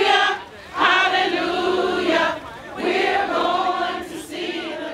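A group of voices singing together in slow, held phrases, each about a second and a half long, with short breaths between them.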